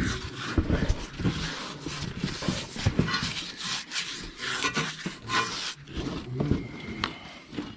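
Steel tire levers scraping and clicking against a tractor tire's rubber bead and the steel rim as the tire is worked over the rim by hand, with irregular knocks and short rasping scrapes.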